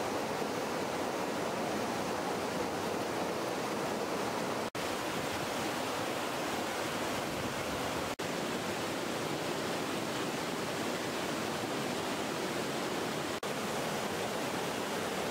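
Steady rushing of flowing river water, an even hiss with no distinct events, broken by three very brief gaps.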